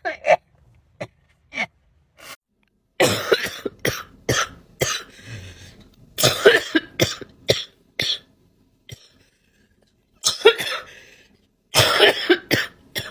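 Coughing in four bouts, each a quick run of harsh coughs, with silent gaps between them; the first bout begins about three seconds in.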